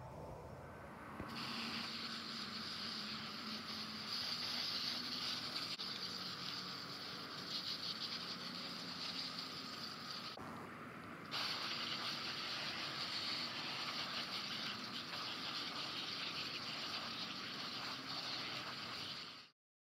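Garden hose spray nozzle spraying water onto kale leaves in a crate: a steady hiss of spray on the leaves. It starts about a second in, stops for about a second midway, then resumes and cuts off suddenly near the end.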